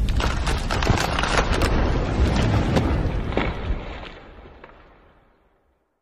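Intro-animation sound effect: a deep, rumbling boom with many crackling clicks over it, fading out about four to five seconds in.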